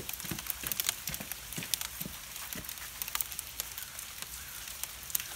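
Hail falling: a dense, irregular stream of sharp ticks as small hailstones strike a wooden table.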